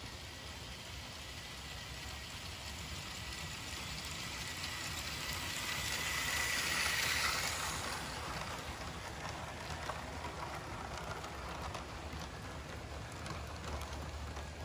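LEGO 1:48 scale model train, a QJ steam locomotive model pulling passenger cars, rolling on plastic LEGO track: a steady hissing rattle of plastic wheels on the rails with a faint thin motor whine. It grows louder as the train comes close, peaks about halfway through, then slowly fades as the cars go past.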